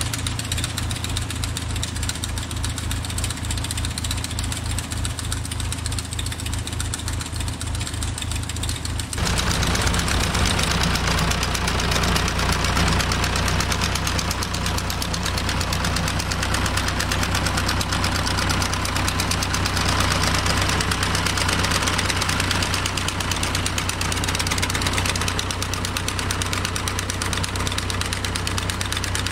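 Massey Ferguson 165 tractor engine running steadily while pulling a finger-bar mower cutting hay. About nine seconds in the sound suddenly becomes louder and closer, with the fast rattle of the mower's cutter bar over the engine.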